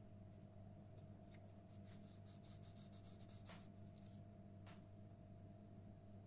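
Faint, scattered clicks and light scratching from a fluted plastic cookie cutter pressed through rolled dough onto the board and lifted again, the strongest click about three and a half seconds in, over a steady low hum.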